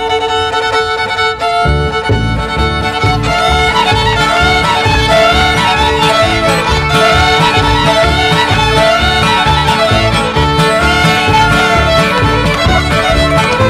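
String band playing a fiddle tune: several fiddles open on a held note, then the upright bass and acoustic guitar come in with a steady rhythm about two seconds in while the fiddles carry the melody.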